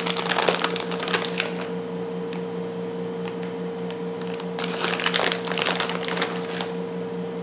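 Plastic bag of shredded cheddar cheese crinkling and rustling as handfuls are pulled out and sprinkled over the dish, in two bursts: at the start and again about halfway through. A steady low hum runs underneath.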